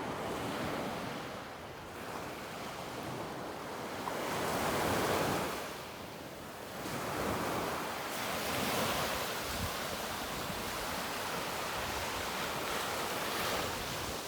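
Baltic Sea waves washing in repeated surges, loudest about five seconds in.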